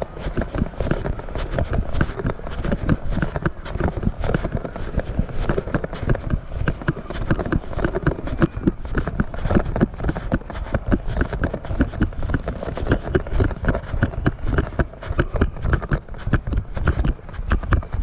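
Footsteps in dry sand at a steady walking pace, close to the microphone: a continuous run of short, scuffing steps.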